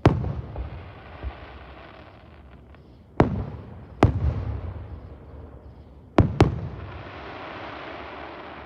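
Fireworks exploding: five sharp bangs, each trailing off slowly. The last two come in quick succession and are followed by a longer hiss.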